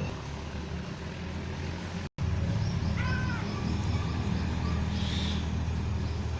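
Steady low rumble of vehicle traffic. After a brief dropout, a crow gives one short caw about three seconds in.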